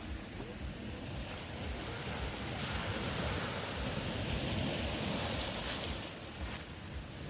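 Ocean waves washing on the shore, a steady rush of surf that swells louder partway through and eases near the end.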